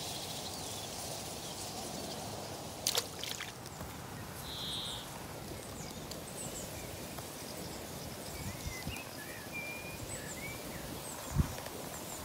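Riverbank outdoor ambience: a steady background hiss with faint bird chirps around the middle. There are a couple of sharp clicks about three seconds in, and a single low thump, the loudest sound, near the end.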